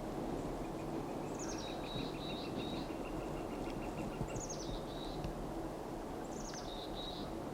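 A small songbird sings the same short song three times, each a quick falling run of high notes ending in a brief trill. A lower, rapid trill runs through the first half, over a steady low background noise.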